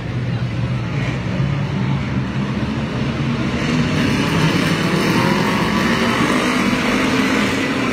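Engines of a pack of Ford figure-8 race cars running together at speed, a dense engine noise that grows louder about halfway through.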